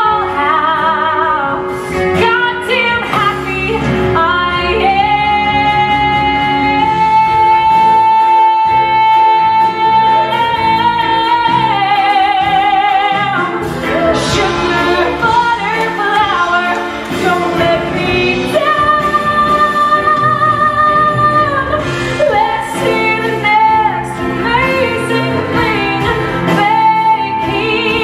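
A woman sings a musical-theatre song over band accompaniment, holding a long note from about five seconds in and a higher one past the middle, with vibrato.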